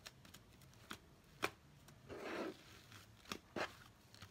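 Fluffy slime being squished and pulled by hand in a plastic bowl: a few faint sticky clicks and pops, with a short squishing noise about two seconds in.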